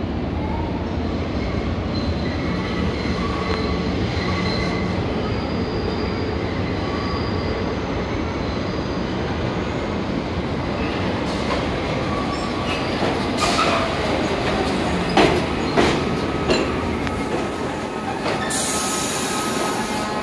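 New York City subway 6 train, R62A cars, pulling into the station: a steady rumble with high wheel squeal, a few sharp clacks about two-thirds of the way through, and a burst of hiss near the end as it comes to a stop.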